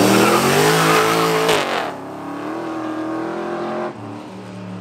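Classic full-size car's engine revving hard, its pitch climbing for about two seconds. It then drops back to a steadier, lower run and eases off near the end.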